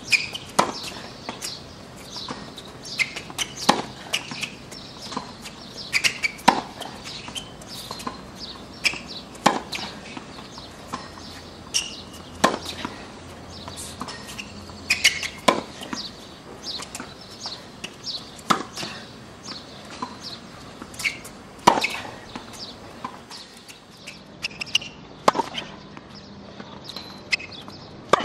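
Tennis racquet striking the ball in a rally on a hard court: a sharp pop about every three seconds, with fainter knocks in between.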